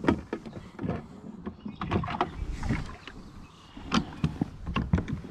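Irregular knocks, clicks and scrapes of gear being handled in a kayak.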